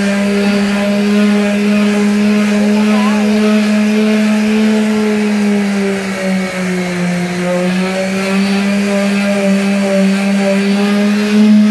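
Corded electric sander with a round pad running steadily while it sands filler on a car's body panel. Its steady hum dips in pitch briefly about halfway through as the motor is loaded, then recovers.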